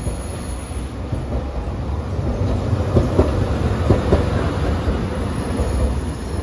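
Hiroshima Electric Railway 800-series tram, car 811, rolling past close by on street track. Its low running rumble swells as it passes, with a few clacks from the wheels midway.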